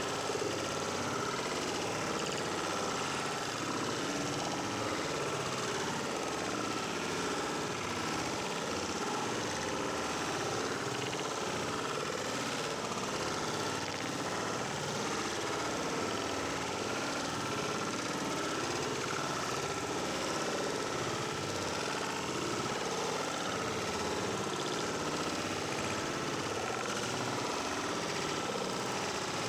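Small waterfall rushing steadily, a continuous even noise of falling water, with a faint steady high tone running through it.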